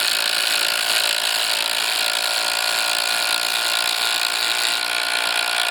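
Two cordless brushless impact drivers, a Ridgid Octane and a Makita TD171, hammering steadily at once as they drive 6-inch structural wood screws into timber on the high setting.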